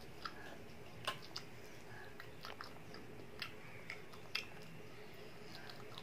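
A child eating fried chicken drumsticks: chewing and biting, with a scatter of short sharp mouth clicks, the loudest a little after one second in.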